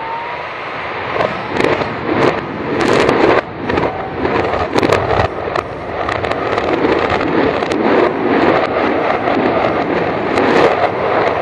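Demolition collapse of a 31-story concrete-framed tower played backwards: a dense run of sharp cracks and pops over a steady rumbling roar of falling debris, the whole growing gradually louder.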